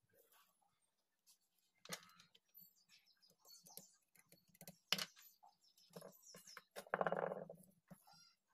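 Soft clicks and taps of a soldering iron and screwdriver working on a 12 V sealed battery's terminal, with a louder scraping burst about seven seconds in as the terminal is rubbed clean for soldering.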